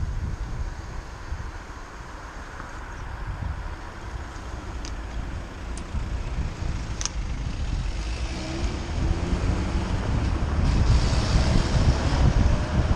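Road traffic on a wet road with wind buffeting the microphone; past the middle, a car engine is heard speeding up as it passes, its pitch rising, and the noise grows louder toward the end.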